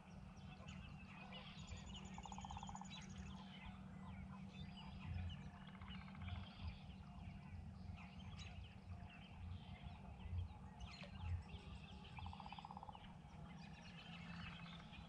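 Wild birds calling at dawn: many short chirps, and twice a fast rolling, rattling call, about ten seconds apart, over a low steady hum.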